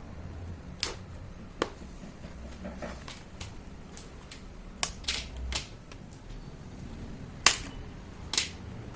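Plastic locking clips of a Dell Vostro 14 5459's back cover snapping free as it is pried open with a spudger: about seven sharp clicks at irregular intervals, the loudest near the end.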